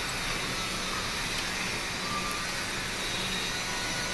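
Steady, even hiss of background noise with no distinct events standing out.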